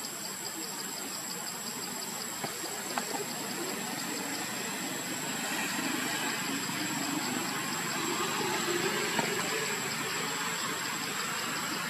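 Outdoor ambience of insects in the trees: a thin steady high whine and a fast, regular pulsing chirp. A low engine rumble, like a passing motor vehicle, swells in the middle and fades a little near the end.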